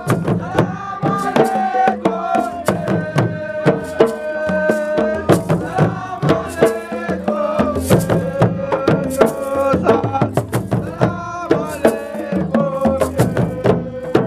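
Music: a song with a held, gliding melody line over busy hand-drum percussion.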